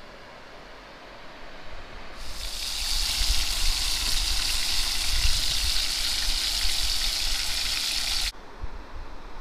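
Bacon strips sizzling in a frying pan on a portable gas stove: a steady bright hiss that starts about two seconds in and cuts off suddenly near the end.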